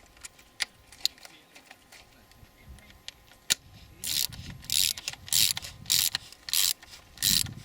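Ratchet wrench clicking as the crankcase oil separator's bolts are tightened a little at a time. A few scattered clicks come first, then about halfway through a run of short ratcheting strokes, roughly two a second.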